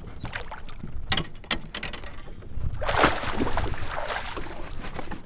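Water splashing beside a fishing boat as a hooked smallmouth bass is brought up and landed. A few sharp clicks and knocks come about a second in, and the biggest splash about three seconds in.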